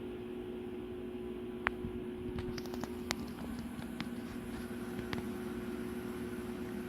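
A steady low mechanical hum with a low rumble beneath it, and a few scattered light clicks or taps.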